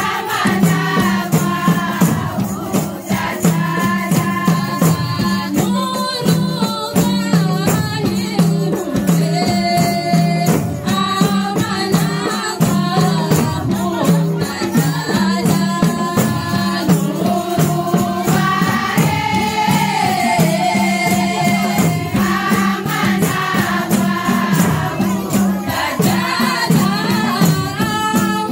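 A group of women singing together, a lead voice on a microphone, over a steady beat of hand-played frame drums and a jingling tambourine.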